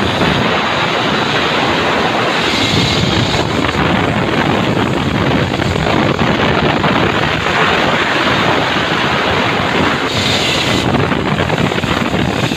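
Steady loud rush of wind buffeting a phone microphone while riding down a zipline.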